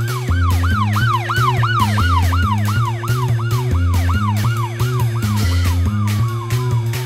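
Emergency-vehicle siren sound effect wailing up and down rapidly, about three times a second, over background music with a steady beat. About five seconds in the siren fades into one long falling tone.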